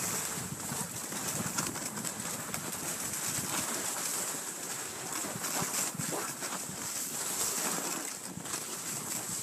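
Cross-country skis gliding down a snowy trail: a steady, scratchy hiss of the skis on snow, with many small crackles.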